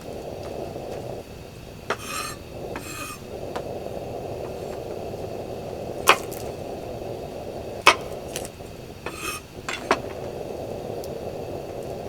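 Steady rubbing and scraping, broken by short raspy strokes and four sharp knocks.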